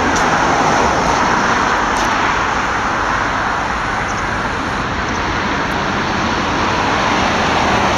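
Road traffic passing: a steady rush of car tyres and engines that swells and eases slowly.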